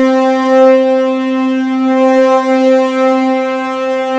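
Sampled orchestral horn section holding a single sustained note, played from a keyboard.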